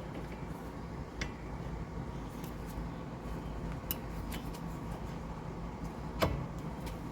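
Steady low hum with three short metallic clicks, the loudest about six seconds in.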